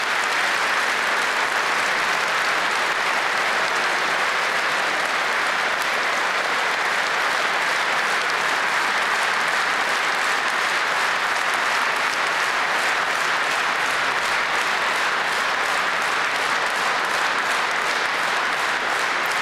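A large audience applauding steadily, with a rhythm of about three claps a second coming through in the second half as the clapping falls into unison.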